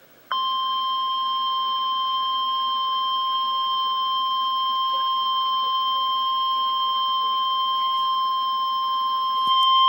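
NOAA Weather Radio 1050 Hz warning alarm tone played through a radio's speaker: one long, steady, high electronic tone that starts a moment in and grows louder near the end. It signals that a weather alert message follows, here a severe thunderstorm watch.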